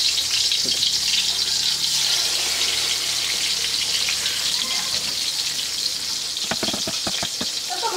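Pieces of marinated poa fish frying in hot oil in a karahi, a loud steady sizzle. A few sharp taps come near the end.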